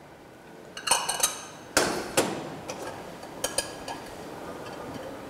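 Glassware and a metal inoculating needle clinking and tapping as a glass Petri dish and its lid are handled: a quick cluster of sharp clinks about a second in, then single clinks a little before two seconds, just after two and around three and a half seconds.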